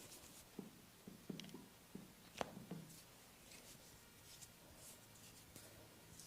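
Faint rubbing and scratching with scattered soft taps and clicks, one sharper click about two and a half seconds in: hands working over skin and hair during a head massage, close to the microphone.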